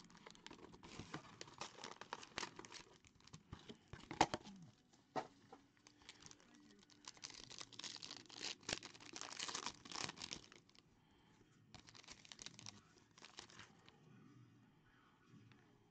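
Faint crinkling and tearing of a trading-card pack wrapper being ripped open by hand, in quick irregular crackles, thinning out in the last few seconds as the cards are handled.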